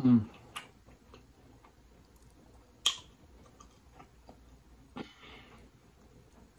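A short hummed "mm" at the very start. Then scattered wet clicks and crackles as a sauce-coated cooked lobster tail is pulled apart by hand, the sharpest about three seconds in.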